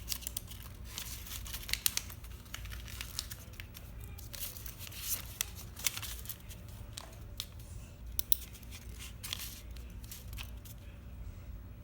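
Paper being folded and creased by hand: irregular crinkling and rustling with sharp crackles as folds are pressed, over a steady low hum.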